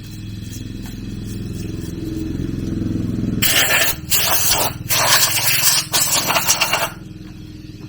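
A small engine running with a steady low pulse that grows louder. From about halfway in, a loud harsh noise comes in four bursts over roughly three and a half seconds.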